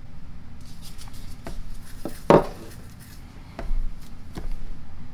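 Knocks and clicks of the empty Ingersoll-Rand 2131 impact wrench housing being handled and set down on a wooden workbench. There is one loud knock about two seconds in that rings briefly, and a second, smaller knock about a second later.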